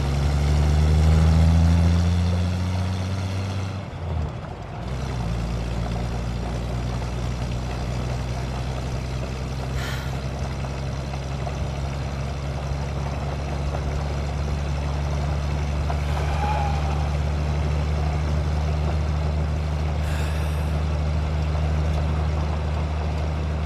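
Motor vehicle engine running as it drives. It is loudest over the first three seconds, drops out briefly about four seconds in, then settles into a steady low drone.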